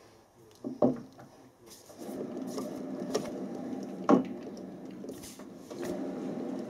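Metal lathe spindle running with the workpiece turning between centres: a steady hum that starts about two seconds in. A sharp knock comes just before it starts and another about four seconds in.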